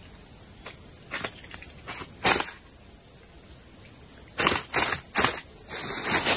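Insects droning in the forest as one steady high tone. Over it come a few sharp rustles and knocks, about two seconds in and again near the end, from handling the freshly caught fish and a plastic bag.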